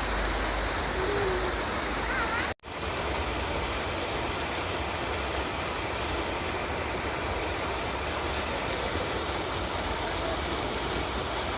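River water rushing steadily, an even wash of noise; it cuts out for a split second about two and a half seconds in.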